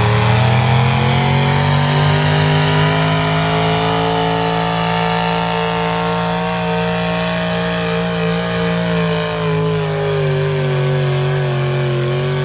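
Pulling tractor's engine running hard under load as it drags a weight-transfer sled down the track: the pitch climbs over the first few seconds, holds high, then eases off over the last few seconds.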